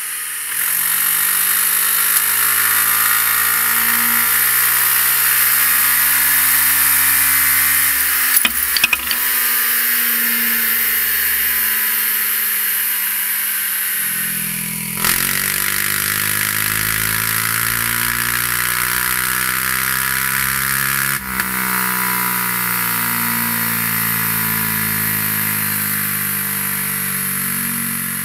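2017 Suzuki Burgman 400's single-cylinder engine running at a fairly steady speed on a chassis dynamometer, first through its stock muffler, then, after a cut about halfway through, through a MIVV Speed Edge slip-on exhaust. A steady high hiss sits over the engine note, with a few clicks about eight seconds in.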